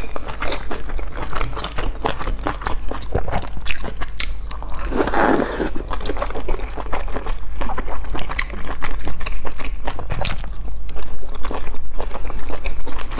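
Close-miked mouth sounds of a person eating boiled dumplings: soft wet biting and chewing with many small clicks, and one louder noisy burst about five seconds in. A low steady hum runs underneath.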